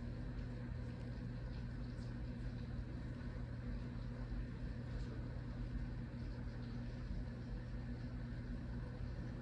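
Steady rain hiss under a steady low mechanical hum, with a few faint ticks.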